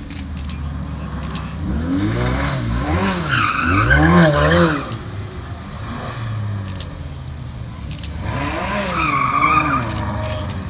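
Supercar engines revving in repeated up-and-down surges with tyres squealing through donuts. First comes a camouflaged Lexus LC convertible prototype spinning. About eight seconds in, a Ferrari 812 Superfast's V12 revs and its rear tyres squeal as it slides sideways.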